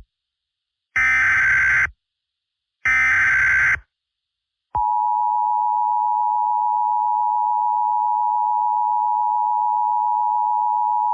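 Emergency Alert System tones: two roughly one-second bursts of the screeching digital SAME header data, about a second apart, then a steady two-tone EAS attention signal that starts nearly five seconds in and holds.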